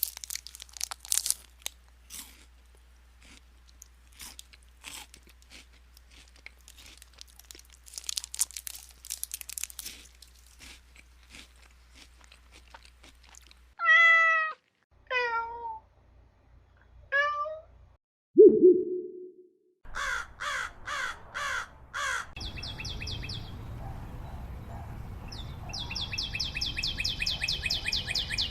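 A string of short stock sound effects: scattered clicks and taps, then three cat meows, a short low blip, and a stretch of rapid chirping over a steady noise.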